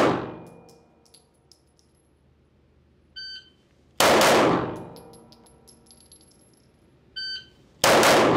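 Smith & Wesson Competitor 9mm pistol shots echoing in an indoor range: one at the very start, one about four seconds in and one near the end. A short electronic beep comes just before each shot, and spent brass tinkles on the floor after them.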